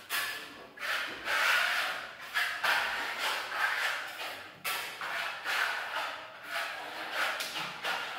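Hand trowel scraping and smoothing a burnt-cement-effect coating on a wall: repeated rasping strokes, about one to two a second, each rising and fading as the blade sweeps across the surface.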